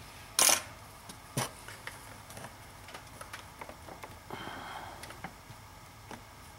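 Plastic clicks and rubbing as a hand twists and pulls the upper radiator hose end on its plastic clip connector, with a short loud burst of noise about half a second in and scattered small clicks after it.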